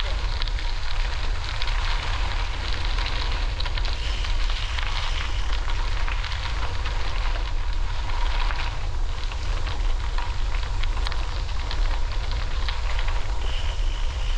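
Riding noise from a bicycle on the move: wind rumbling on the microphone over a steady crackling hiss of the tyres rolling along the trail, with many small ticks.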